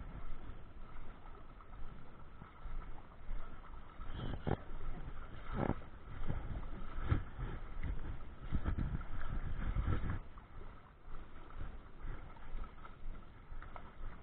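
A hooked salmon being played on a spinning rod and reel: the reel is cranked in spells, with knocks and rustles close to the microphone, and the fish splashes at the surface. The sound is busiest from about four to ten seconds in and quieter after that.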